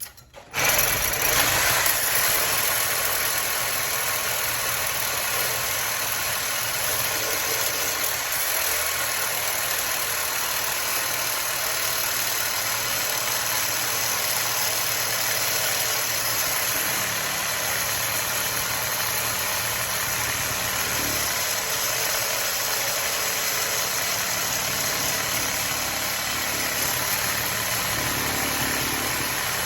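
A power cutting tool starts about half a second in and runs steadily as it cuts through a microwave magnetron's steel body to get at the copper inside.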